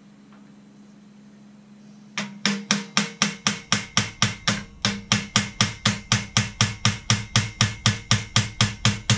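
Small hammer tapping a pin through the frame of a Black & Decker Workmate 536 in quick, even, light blows of about four a second, starting about two seconds in.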